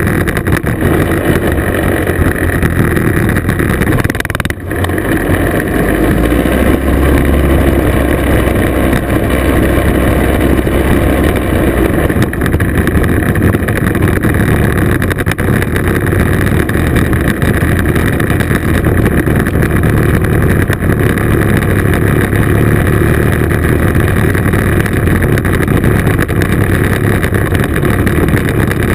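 Classic two-stroke scooter engine running steadily under way, heard from on board with road and wind noise, the sound dipping briefly about four and a half seconds in.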